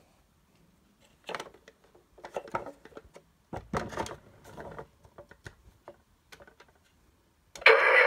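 Plastic toy semi truck being handled: scattered knocks and rattles, with a deeper thump about three and a half seconds in as it is set down on a wooden table. Near the end, pressing the cab sets off the toy's loud electronic sound effect.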